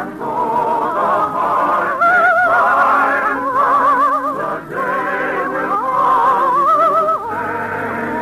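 Operetta music from an old radio broadcast: a melody in long held notes with wide vibrato over an orchestral accompaniment, with short breaks between phrases.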